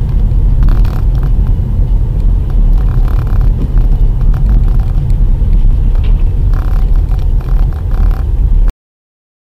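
Steady low rumble of a car driving on a wet road, heard from inside the cabin through a dashcam microphone, with a few light clicks over it. It stops abruptly near the end.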